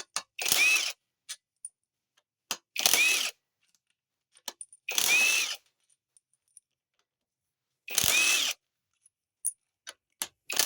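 A cordless power driver runs in short bursts of about half a second, four times, spinning bolts out of a TH400 transmission. Each burst has a brief rising-then-falling motor whine. Light clicks of bolts and tools come in between.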